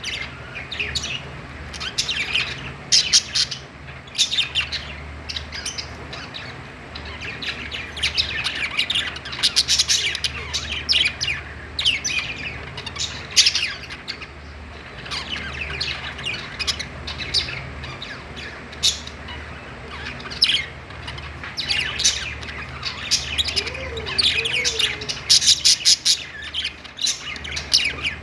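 A group of budgerigars chirping and warbling over one another in continuous chatter, with sharp high chirps coming in quick runs.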